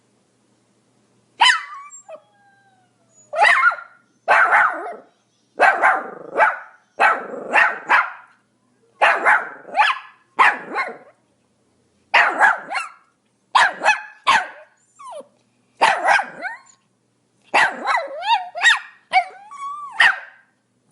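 Pomeranian barking over and over: sharp, high-pitched barks, many in quick runs of two or three, starting about a second and a half in.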